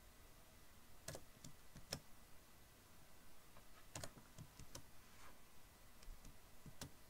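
Faint, scattered clicks of computer keys being pressed, a handful of separate keystrokes a second or more apart.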